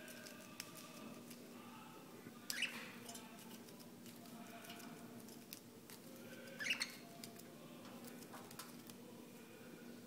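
Two budgerigars squabbling: two short, sharp squawks, about two and a half seconds in and again near seven seconds, with light clicking between them.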